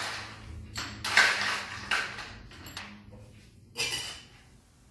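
A cocktail shaker and bar utensils being handled on a kitchen counter: a few short clinks and scrapes spread over the seconds, one of them a sharp click.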